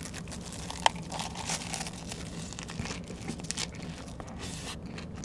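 Chewing a big mouthful of lettuce wrap (ssam) filled with rice and spicy stir-fried pork: soft crunching and crackling of the fresh leaves with many small wet mouth clicks, one sharper click about a second in.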